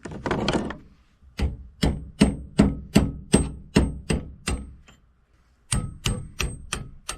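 Hammer blows on metal, about two and a half a second, each with a faint ring. About nine strikes, a short pause, then five more.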